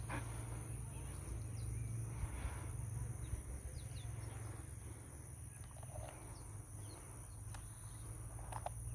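Outdoor ambience: a steady high-pitched insect drone over a low rumble, with a few faint short bird chirps and light clicks.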